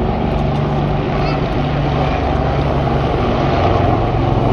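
Aircraft engine running steadily overhead: a continuous low drone with a few steady tones.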